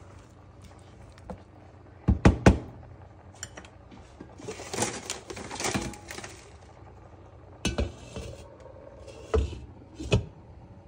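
Wooden spoon working a nonstick pan of meat in broth: a few sharp knocks about two seconds in, then a stretch of stirring and scraping, and near the end the clunks of a glass pot lid being set on the pan.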